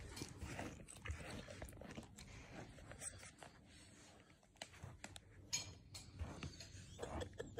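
A small long-haired dog chewing and nibbling, faint, with many small clicks and snaps of its teeth.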